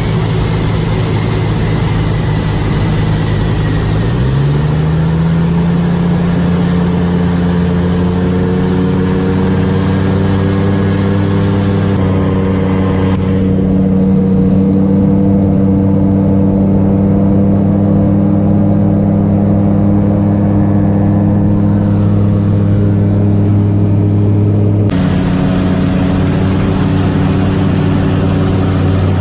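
Propeller engine of a light aircraft running loud and steady. It climbs in pitch about four seconds in, then holds an even note, and changes abruptly near the end.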